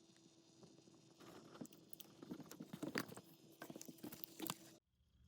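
Faint, irregular crackling and clicking lasting a few seconds over a steady low hum, both cutting off abruptly near the end.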